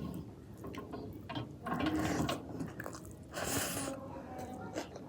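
Chewing and mouth sounds of a person eating, with many small wet clicks and a short hissing sound a little past the middle.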